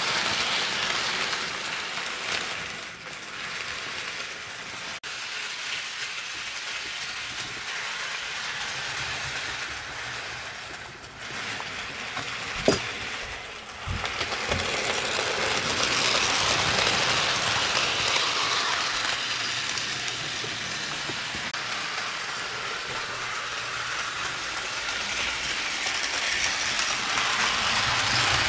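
Model train running on the layout track: a steady rattle of wheels on rail that swells as the locomotive and cars pass close by, with a single sharp click about halfway through.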